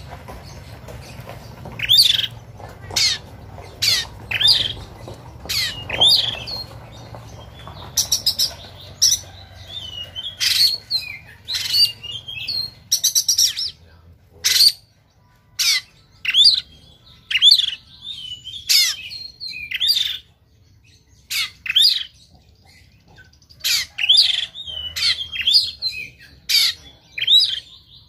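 Caged oriental magpie-robin (kacer) singing its rough fighting song: harsh, sharp bursts of notes mixed with short whistled curls, delivered in irregular volleys, with a quick rattling run about halfway through and a few short pauses.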